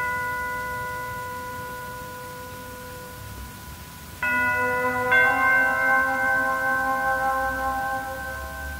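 Orchestral music: a bell-like chord fades slowly, then fresh chords are struck about four and five seconds in and ring on, held steady.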